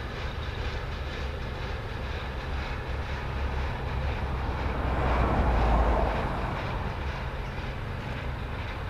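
Freight train's container flat wagons rolling past on the rails: a steady rumble of wheels on track that swells louder about five seconds in, then settles again.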